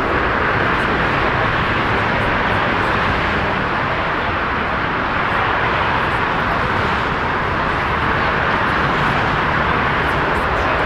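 Steady jet roar of a Boeing 787-9 rolling out on the runway just after touchdown: a constant rushing noise with no distinct tones.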